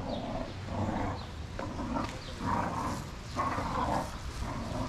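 A dog barking repeatedly, about six barks a little under a second apart.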